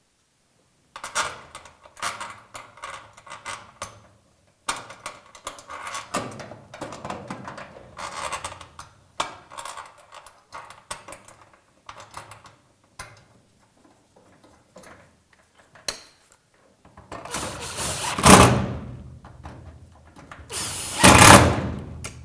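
Garage door lock assembly being refitted: scattered clicks and rattles of metal parts and fasteners being handled, then twice near the end a cordless drill runs for a couple of seconds, driving in the screws that hold the lock together.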